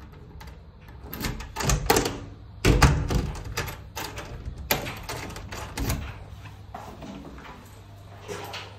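Key worked in an apartment door lock: a series of metallic clicks and clunks from the lock bolt and lever handle, the loudest a heavy clunk about three seconds in.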